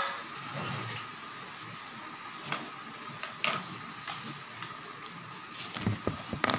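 Phone handling noise over a steady background hiss: a few scattered clicks, then a cluster of rubbing bumps near the end as the phone is moved.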